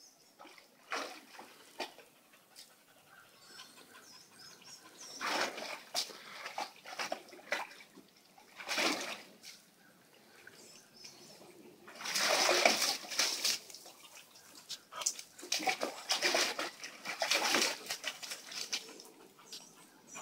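Portuguese water dog splashing in a plastic kiddie pool: irregular bursts of sloshing and splashing water, the biggest about twelve seconds in and another run of splashes a few seconds later.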